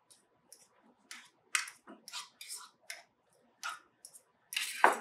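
A regular fork mashing diced ripe avocado in a stainless steel bowl: a run of short, irregular squishing strokes, the loudest near the end.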